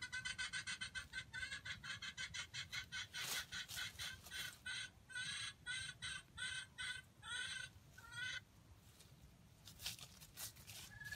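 Junglefowl (wild chicken) clucking: a fast run of short calls, about five a second, easing to two or three a second and stopping about eight seconds in. A few sharp clicks come near the end.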